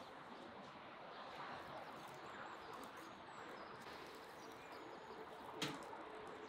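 Faint outdoor ambience with small birds chirping now and then, and a single sharp tap about five and a half seconds in.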